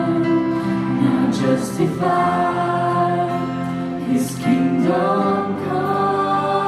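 Live worship band playing: women singing into microphones over held chords from keyboard and guitars, with bass and electronic drums.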